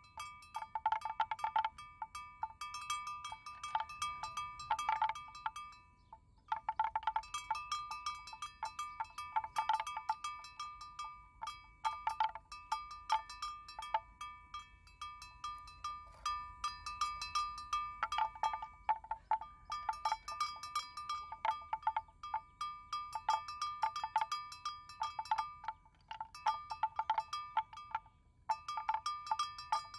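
A metal bell hung on a grazing water buffalo's neck, clanking irregularly with its head movements and falling still a few times for a second or so.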